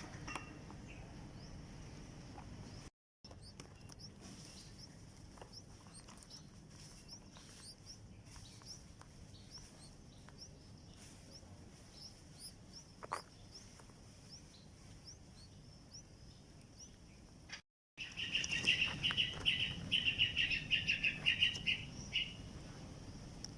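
Red-whiskered bulbul nestling chirping in a fast, loud run for about four seconds near the end, typical of a chick begging for food. Before that there are only faint high chirps, and the sound cuts out briefly twice.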